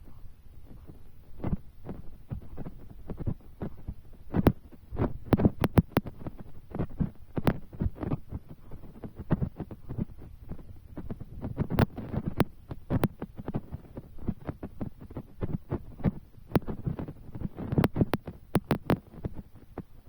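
Raindrops tapping irregularly close to the microphone, several soft low thumps a second with occasional sharper clicks, over a faint low hum.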